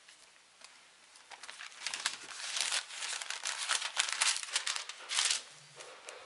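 Thin Bible pages being turned and rustled close to a microphone: a run of quick, crinkly paper rustles that starts about a second in and stops near the end.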